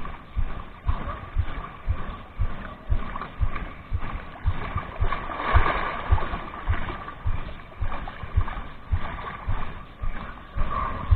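Sea water washing and splashing against shoreline rocks, swelling briefly in the middle, over steady low thumps about twice a second.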